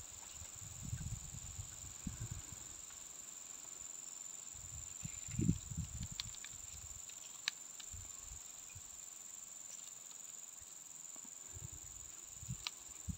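Steady high-pitched insect drone, like crickets or cicadas, with intermittent low rumbles on the microphone and a few faint ticks.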